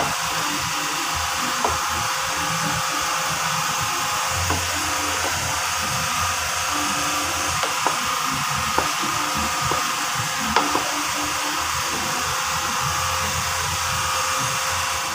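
Metal spoon stirring fried rice in a pot, clicking against the pot a few times, over a steady whirring hiss.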